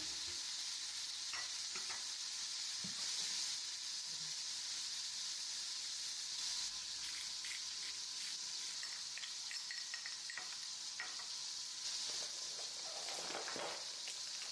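Food frying in hot oil in a pan: a steady sizzle with small crackles and pops scattered through it.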